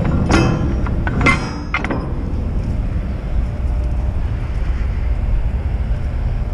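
A few sharp metallic clinks with a brief ring in the first two seconds, then a steady low rumble alone.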